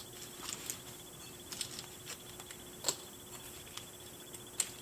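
Faint, scattered clicks and light rustles of hands handling a boxed doll's plastic packaging and straps, over a quiet steady room hum.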